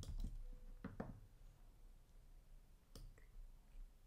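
A few faint, short clicks of a computer mouse and keyboard over near silence, as audio is edited in a DAW.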